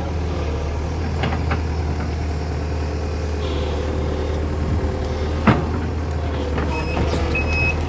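Sumitomo SH120 A3 excavator's diesel engine running steadily, with one sharp knock about five and a half seconds in and a few short high beeps near the end.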